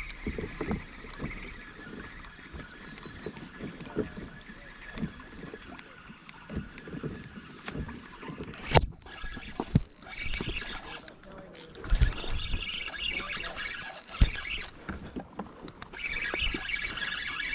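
Scattered knocks and clunks of gear on a plastic fishing kayak, with a sharp click about halfway through and two heavy thumps later on.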